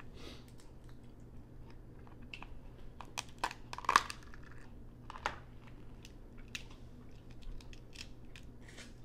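Steamed blue crab shells being cracked and picked apart by hand, with chewing: scattered sharp cracks and clicks, the loudest about four seconds in.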